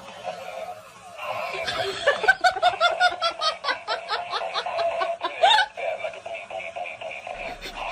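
Laughing in a fast run of short, evenly spaced 'ha' pulses, several a second, starting about two seconds in and stopping near six seconds.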